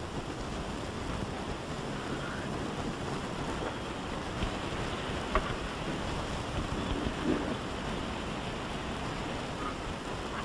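Steady wind noise, a rushing heaviest in the low end, with a faint click about five seconds in.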